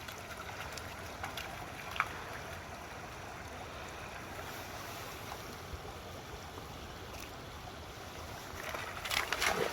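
Shallow stream running over stones at a ford, a steady rush of water, with a single click about two seconds in and a short louder patch near the end.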